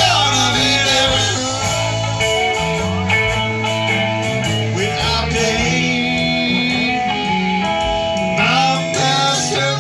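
A live rock band playing: electric guitars and an electric bass over a drum kit, with guitar notes bending up and down.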